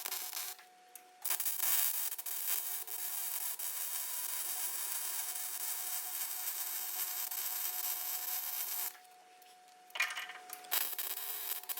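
Electric welding arc sizzling and crackling in long runs, stopping twice briefly between beads, with a faint steady hum from the welder during the pauses.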